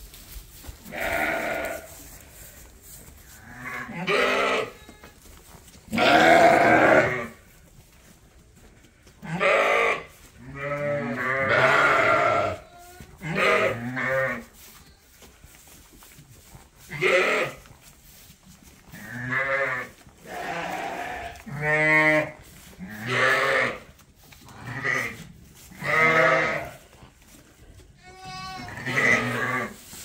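Suffolk sheep bleating: about fifteen separate calls, some low and some higher-pitched, several with a wavering quaver.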